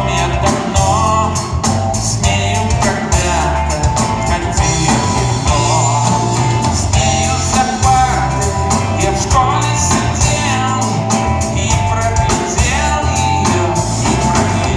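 Rock-style song playing with a steady beat, bass, guitar and a singing voice.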